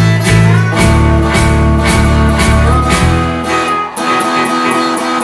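A live band with guitars, bass and drums playing the last bars of a song in a steady beat; about four seconds in the drums and bass stop and a final chord rings out.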